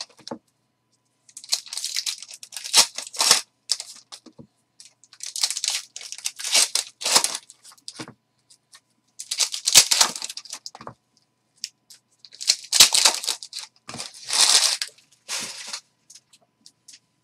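Upper Deck Trilogy hockey card packs being torn open by hand, their wrappers crinkling, in about five crackly bursts a few seconds apart.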